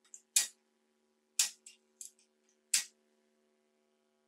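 Sharp metallic clicks from a hand driver tightening the clamp bolt of a bicycle front derailleur: three loud clicks about a second apart, with fainter ticks between them.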